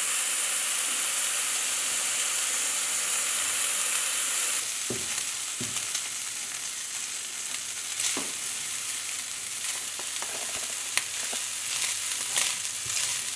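Diced bacon sizzling in a hot non-stick frying pan, frying until crunchy, while a wooden spatula stirs it, with a few short scrapes and taps on the pan. The sizzle steps down a little about four and a half seconds in.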